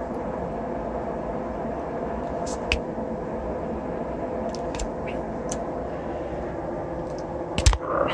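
Steady workshop hum with faint held tones. Over it come a few small clicks as pliers bend and trim a short piece of stiff wire, and a louder knock near the end.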